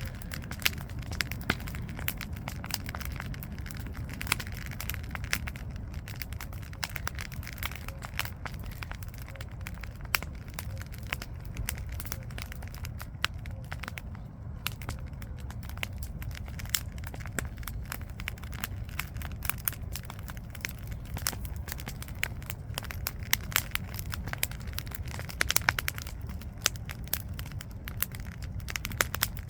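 Wood campfire burning, crackling with many small irregular pops and snaps over a steady low rumble.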